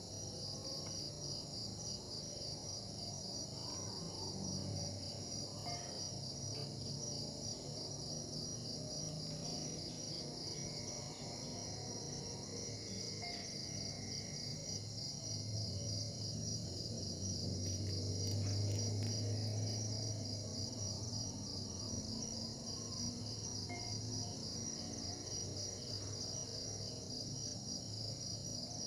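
Insect chorus of crickets chirping steadily in a fast, even pulse throughout. A low hum swells up about halfway through and fades again.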